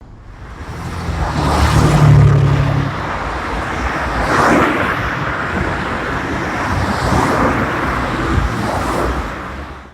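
Road traffic: motor vehicles running and passing, with a steady low engine hum loudest about two seconds in and further swells of passing-car noise around the middle and later on. It fades in at the start and fades out at the end.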